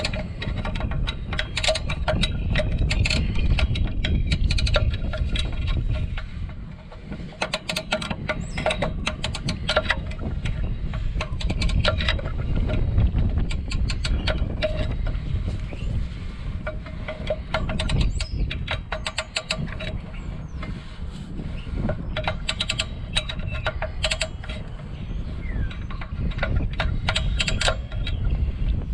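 Light metallic clinks and ringing tones, with wind rumbling on the microphone throughout.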